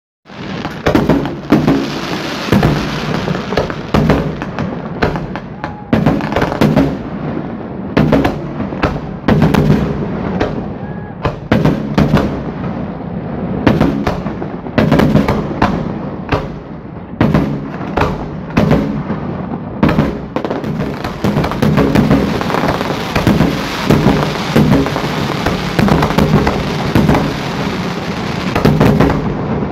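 Aerial fireworks display: shells bursting in quick succession, a steady run of sharp bangs over a continuous rumble and crackle, several bangs a second at the busiest moments.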